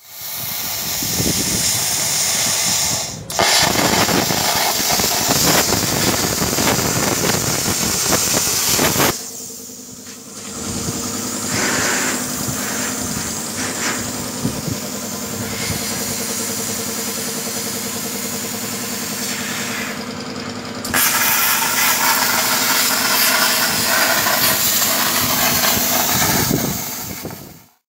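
Plasma cutter cutting metal: a loud, steady hiss of the arc and air jet. It breaks briefly about three seconds in and dips around ten seconds. A quieter stretch with a steady hum under the hiss follows until about twenty-one seconds, then the loud hiss returns and stops near the end.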